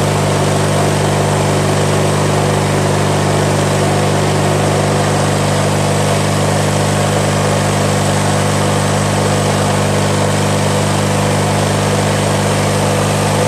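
The small engine of a 1997 MTD Yard Machines riding lawnmower running steadily after a cold start at about 25°F (−4°C).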